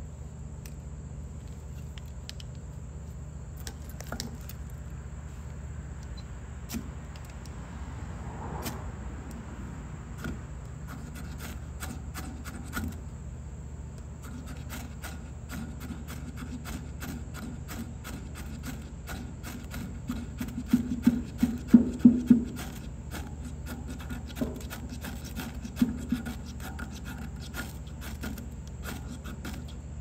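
Spine of a Victorinox Swiss Army knife's saw blade scraped down a mini ferro rod in repeated rasping strokes, striking sparks into jute twine tinder. The strokes are sparse at first, then come fast and dense from about halfway, loudest about two-thirds of the way through.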